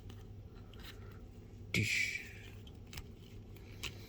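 Plastic action figure being handled and posed: a short scrape of plastic about two seconds in, then a few faint clicks as its leg joints are worked, over a low steady hum.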